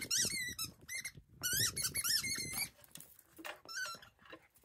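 A Shiba Inu chewing a pink rubber squeaky ball, making it squeak over and over in quick runs, with a short break about a second in and a few more squeaks later on.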